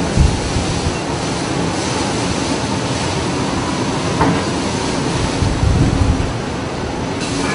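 Storm at sea: a steady rush of wind and breaking waves, with low rumbles of wind buffeting the microphone, the strongest about six seconds in.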